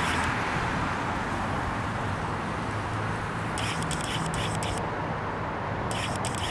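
Steady outdoor background noise of traffic, a low rumble and hiss, with short spells of faint crackling clicks about three and a half seconds in and again near the end.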